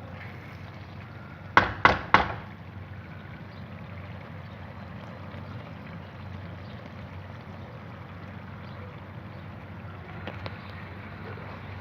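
Three sharp knocks in quick succession, over a steady low hiss.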